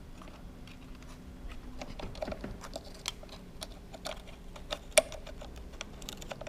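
Sunroof parts being worked into place by hand: a run of small irregular clicks and taps, with one sharp click about five seconds in.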